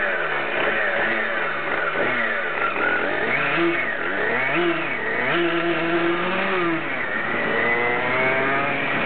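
Tuned 70cc Minarelli Stage6 two-stroke engine in a Kreidler moped, breathing through an FTT7014S expansion-chamber exhaust: revs swing up and down again and again as it pulls away from a standstill, then climb steadily near the end as it accelerates.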